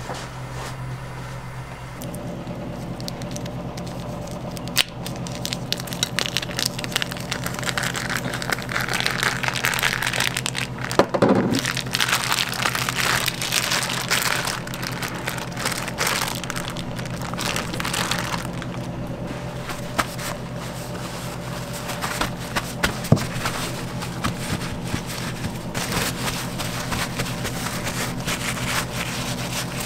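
Crinkling of a plastic vacuum pack and handling of a raw beef tenderloin on a cutting board, with scattered clicks and a few sharper knocks, over a steady kitchen hum.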